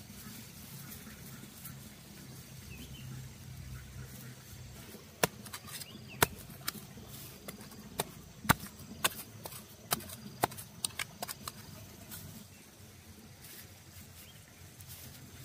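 Dry straw mulch crackling and snapping as hands work it aside and press soil around a transplanted seedling: a run of sharp clicks and snaps through the middle. A low steady hum underneath fades out after about five seconds.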